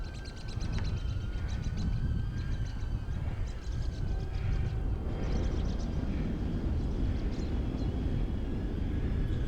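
Wind buffeting the microphone of a camera on a moving bicycle, a steady low rumble, with several short bursts of rapid high ticking and a faint steady whine.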